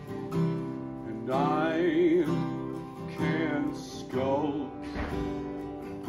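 A man singing a slow song to his own strummed acoustic guitar, in short phrases with held notes that waver in pitch.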